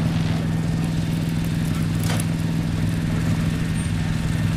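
A steady low mechanical hum with evenly stacked tones, engine-like and unchanging, with one brief click about two seconds in.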